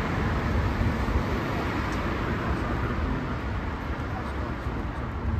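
Steady road traffic noise with a low rumble, from cars passing and a double-decker bus standing at the stop with its engine running.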